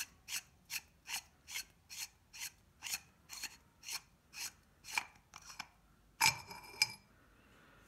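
Threaded valve cap being unscrewed by hand from a Kral Puncher PCP air rifle's metal air reservoir tube: a short rasping scrape about two and a half times a second, one with each twist of the hand. About six seconds in come two sharper metallic clinks that ring briefly.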